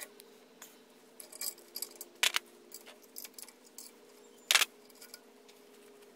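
Small metal clicks and clinks of a brake line flaring tool being handled in a bench vise as its yoke and bar knock together, with two sharper knocks about two and four and a half seconds in. A faint steady hum runs underneath.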